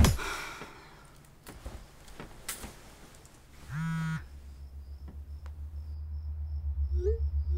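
Night ambience of crickets chirping, with a low pulsing drone that swells steadily. A short buzz sounds once about halfway through.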